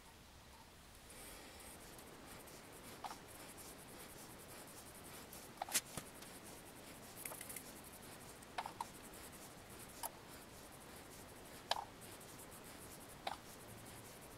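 Brush applicator spreading purple layout fluid over the face of an aluminum plate: faint brushing strokes, with a light click every second or two.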